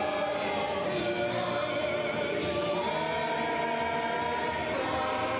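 Uniformed wind band with brass and saxophones accompanying singers, the voices holding long sustained notes over the band. The notes change about three seconds in.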